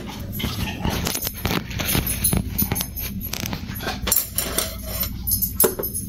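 A run of light clicks and clinks, some with a metallic jingle: utensils being handled and set down.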